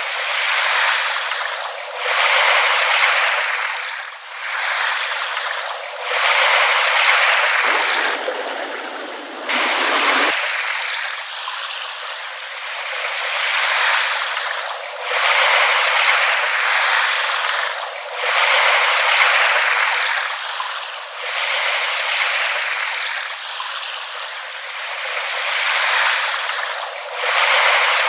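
Small waves lapping at the shore: a continuous wash of water that swells and fades every two to three seconds.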